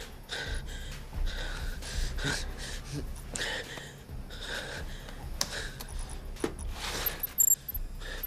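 A man breathing hard and gasping under tension. Short high electronic computer beeps come near the end.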